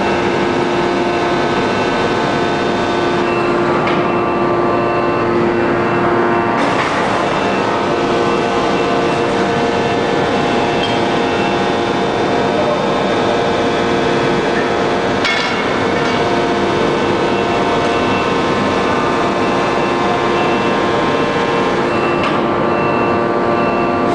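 1250-ton open-die forging press running: a loud, steady machine whine and hum made of several steady tones. The tones shift about six and a half seconds in, and there is a short sharp clank near the middle.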